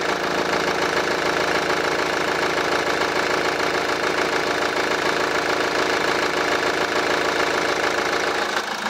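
Kia Grand Carnival's 2.2-litre R diesel four-cylinder idling steadily, heard with the bonnet open. A healthy idle: the belts run normally with no squeal or scraping, and the engine is not loud for a diesel.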